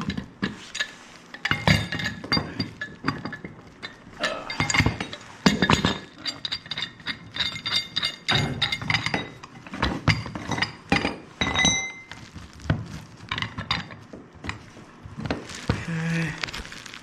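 Wrenches clinking and knocking against threaded metal gas pipe fittings as a pipe nipple is tightened, many irregular metallic clicks, some briefly ringing.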